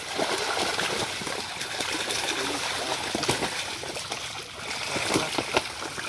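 Many netted fish thrashing and splashing in shallow water as they are grabbed by hand: a continuous churning wash of water broken by frequent, irregular sharp slaps.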